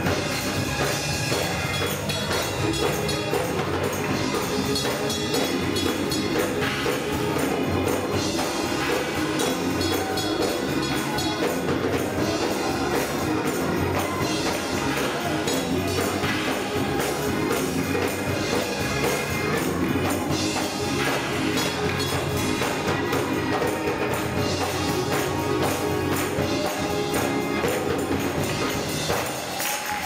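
Live gospel choir singing with instrumental backing and a steady, rhythmic percussive beat. The low end drops away briefly near the end.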